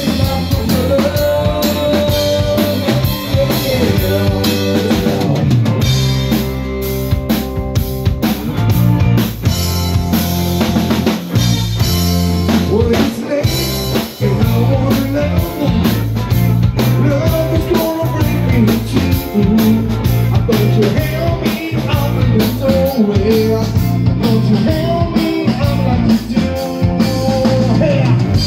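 A live rock band playing, with a drum kit, electric guitar and bass guitar under male and female singing.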